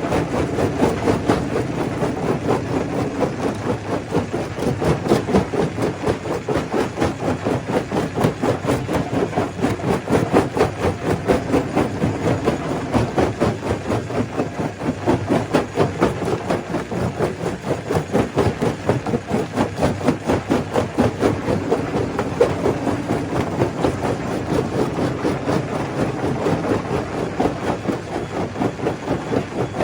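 Stone crusher running and crushing rock: a steady, dense clatter of rapid knocks that goes on without a break.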